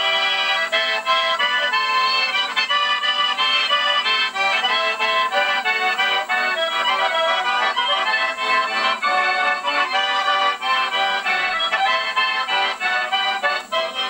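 Button accordion playing a fast tune with chords, the notes changing several times a second. It sounds thin, with no bass at all.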